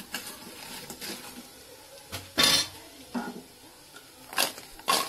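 Metal slotted spoon scraping and clinking against a stainless steel pan as fried paneer pieces are stirred and tossed into the masala. A few separate strokes, the loudest about halfway through and two more near the end.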